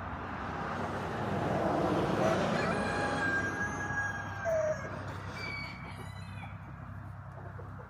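A rooster crowing, a long drawn-out call about three seconds in, followed by a couple of shorter calls, over a steady low hum.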